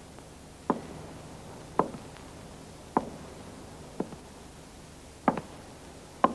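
Footsteps of leather-soled shoes on a pavement: six sharp, even steps about a second apart, a slow walking pace.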